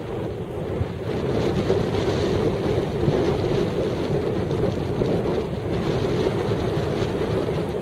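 Heavy wind on the microphone, a steady rushing noise with no break.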